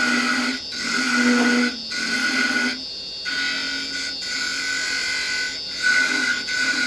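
Wood lathe running with a steady whine while a square carbide chisel, held rolled over on its edge, cuts the spinning wooden finial. The cutting hiss drops away briefly several times.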